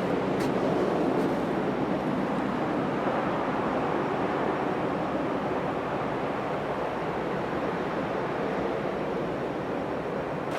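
Steady rushing noise of wind in a blizzard, even throughout with no distinct events.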